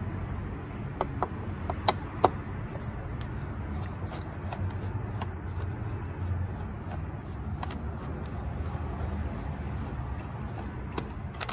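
A few sharp clicks as a Phillips screwdriver seats on and turns a screw in a plastic air-filter box, then many quick high bird chirps from about four seconds in, over a steady low rumble.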